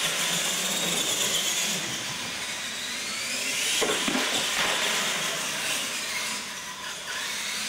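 Electric motors of RC monster trucks whining at full throttle, with tyres hissing on a concrete floor. The whine rises in pitch near the middle as a truck speeds up, and there is a single thump about four seconds in.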